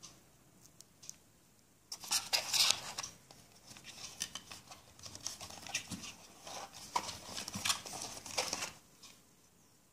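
Packaging being handled: the cardboard tray of a smartphone box and plastic-wrapped accessories rustling and crinkling as a hand digs the charger out. It is a busy run of small crackles and scrapes that starts about two seconds in and stops shortly before the end.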